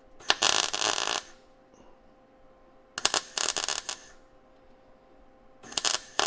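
MIG welder tack-welding thin car-body sheet steel to fill a gap: three short bursts of crackling arc, each about a second long, with pauses between.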